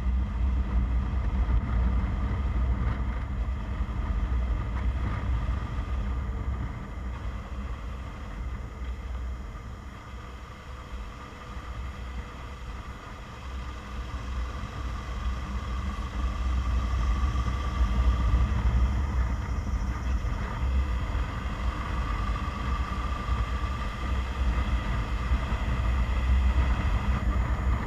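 Car driving on a mountain road: a steady low engine and road rumble that eases off about ten seconds in, then builds again.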